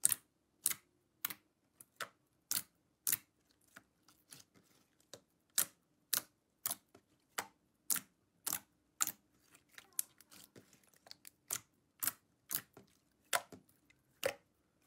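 Fingers pressing and poking into a thick, glossy slime, making short sharp clicking pops about two a second as air pockets burst, with softer irregular crackling as it is stretched after about ten seconds in.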